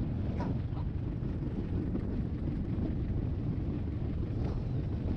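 Strong sea wind buffeting the microphone, a steady low rumble, over the sound of heavy surf.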